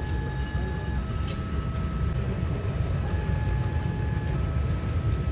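CC 201 diesel-electric locomotive running with a steady low engine rumble, while a two-tone electronic warning alarm alternates between a higher and a lower note, each held for about a second.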